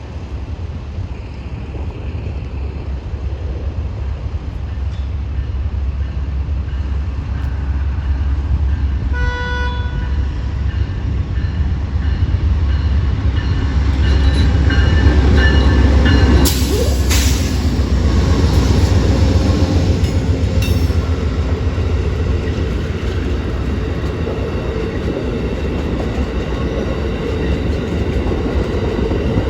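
Amtrak passenger train passing slowly through a grade crossing. Its low rumble builds to its loudest about halfway through and stays strong. There is a short horn toot about nine seconds in, and several high tones sound around the middle as the train goes by.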